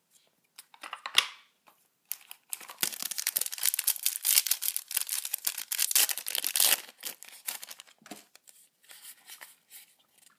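Foil wrapper of a Yu-Gi-Oh! Shining Victories booster pack being torn open and crinkled: a short crackle about a second in, then a long dense crackling tear from about two seconds to seven, followed by lighter, scattered crinkling.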